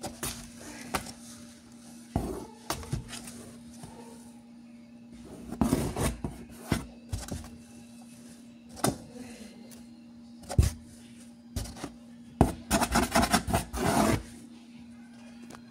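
Scattered knocks, taps and scraping against a cardboard box, with a quick flurry of them near the end. A faint steady hum runs underneath.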